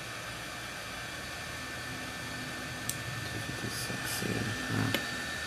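858D hot air rework station blowing air with a steady hiss and a faint steady whine from its fan. A click comes about three seconds in, followed by a few light handling taps.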